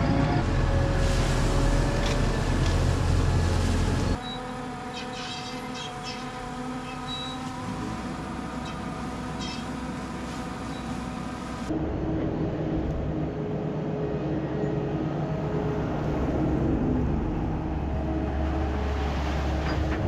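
Diesel engines of silage trucks and tractors running steadily while loads are hauled and dumped at the bunker silo. The sound changes abruptly twice, about four seconds in and again near twelve seconds.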